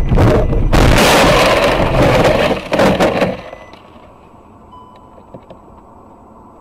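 Car colliding with a truck: a loud impact about a second in, followed by crash noise that cuts off after about three seconds, leaving a faint hiss with a few small ticks.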